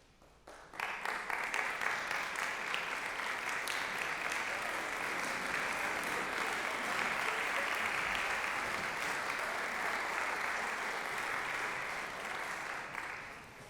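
Audience applauding, a dense patter of many hands clapping that starts suddenly about a second in, holds steady, and dies away near the end.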